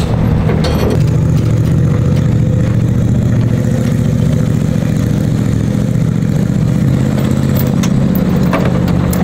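An engine running steadily at a constant pitch, a loud low drone with no revving.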